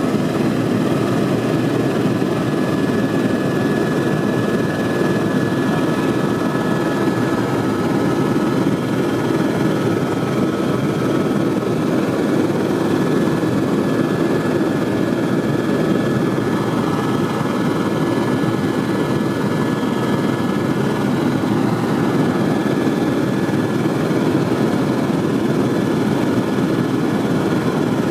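Helicopter in flight, heard from inside the cabin: a steady, loud rotor and engine drone with a faint steady whine above it.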